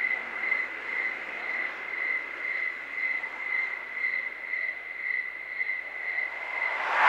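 A steady high chirring tone that pulses about twice a second, like crickets, over a faint hiss. Near the end a rush of noise swells up loudly.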